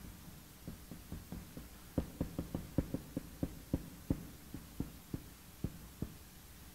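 Marker tip tapping on a whiteboard as characters are written stroke by stroke: a string of short, irregular clicks, a few a second, most of them in the middle stretch.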